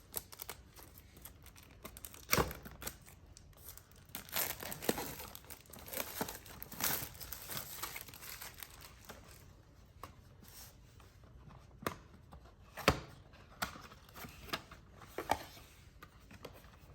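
Speaker packaging being opened by hand: irregular tearing and crinkling of the packaging, densest through the middle, with a few sharp clicks and knocks, the loudest one near the end.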